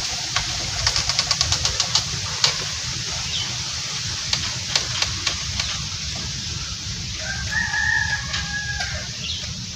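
A rooster crowing once, a drawn-out call of about a second and a half starting about seven seconds in. A quick run of clicks sounds about a second in.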